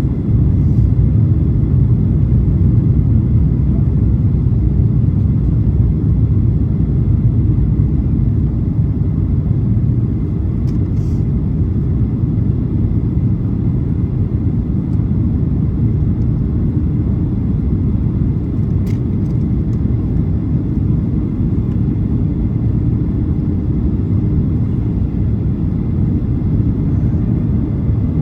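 Steady low cabin roar of a Boeing 737-800 in flight, its CFM56-7B engines and the airflow making an even rumble, with a couple of faint clicks.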